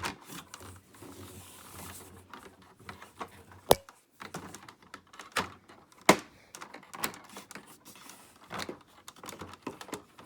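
Hard plastic clicks and knocks of Hoover upright vacuum attachments being handled and snapped onto the cleaner's tool rack, with the motor off. Two sharper clicks stand out, at about four and six seconds in.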